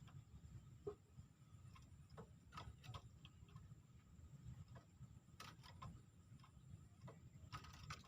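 Near silence with faint, scattered short clicks and ticks over a low steady rumble.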